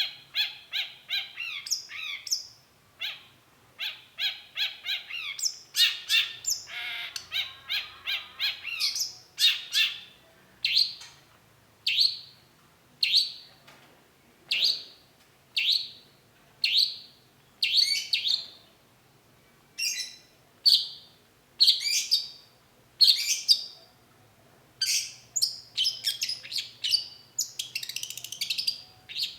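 Long-tailed shrike singing: fast, varied chattering phrases, then a run of short harsh calls about once a second, turning back to dense, mixed phrases near the end.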